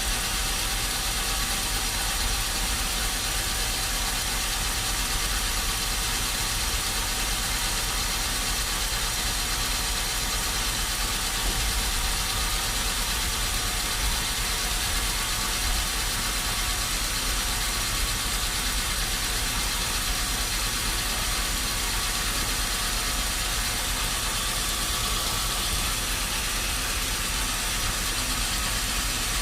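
Engine or machinery running steadily at a constant speed, with no changes in load.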